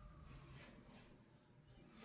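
Faint distant emergency-vehicle siren wailing, its single tone sliding slowly down in pitch and fading out about halfway through.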